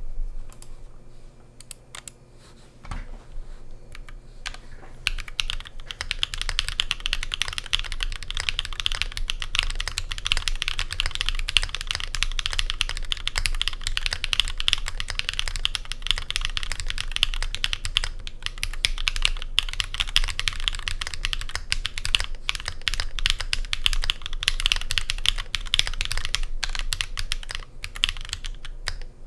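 Custom mechanical keyboard with lubed Zaku long-pole linear switches, an aluminium plate and GMK Serika 2 keycaps being typed on. A few scattered keystrokes come first, then fast, continuous typing from about five seconds in.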